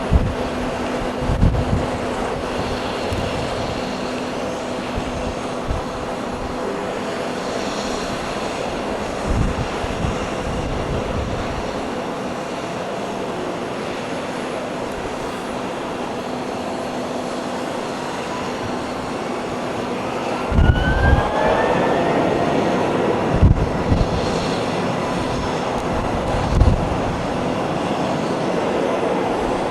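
Jet airliner engines running with a steady rumble and whine. From about 18 seconds in, a whine rises in pitch and then holds as the engines spool up. Gusts of wind buffet the microphone now and then.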